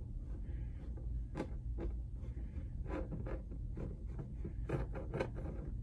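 Faint scratching and scattered light ticks of a fine paintbrush stroking paint onto corrugated cardboard, over a steady low room hum.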